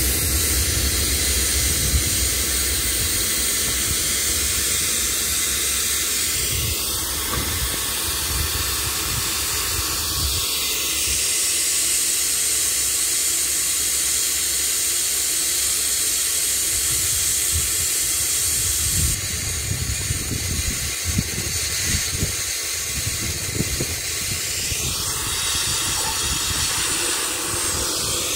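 Hitachi diesel-electric locomotive No. 4505 standing with its engine running: a steady hiss over an uneven low rumble, on a trial start after a breakdown.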